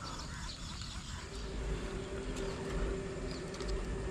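Outdoor ambience: a low rumble throughout, a steady humming drone that comes in about a second in, and small birds chirping faintly now and then.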